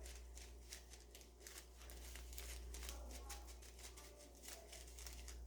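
Faint, irregular crinkling and light clicking from pink floam beads being handled over slime, over a low steady hum.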